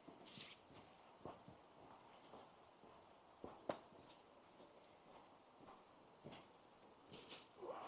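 Two high, thin whistled bird calls about half a second long, the second some three and a half seconds after the first, over faint steps of a walker on a countryside path.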